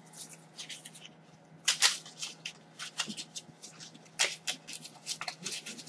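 Paper and packaging rustling as cards and wrapping are handled, a string of short crisp rustles and clicks with the sharpest ones a little under two seconds in and again about four seconds in.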